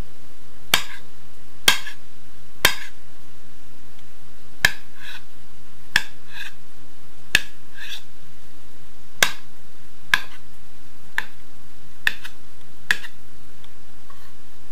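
A kitchen knife chopping beetroot on a cutting board: about eleven sharp knocks of the blade against the board, roughly one a second, several followed by a softer second tap.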